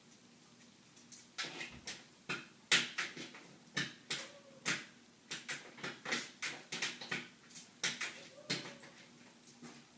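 Irregular clattering knocks, some twenty in about seven seconds, of things in a refrigerator being knocked about by a dog rummaging through it.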